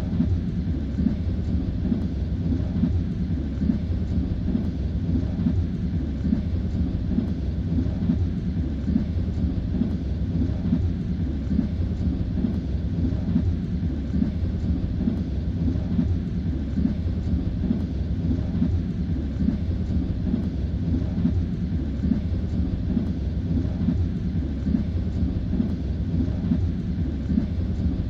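Train running at speed, heard from inside the carriage: a steady low rumble with the knock of the wheels on the rails.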